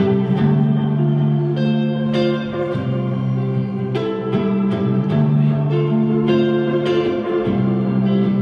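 Electric guitar played live, chords struck every half second to a second over held low notes.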